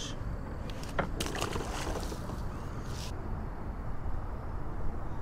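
Splashing and water sloshing against a kayak as a white bass is released over the side, starting with a short knock about a second in and stopping about two seconds later.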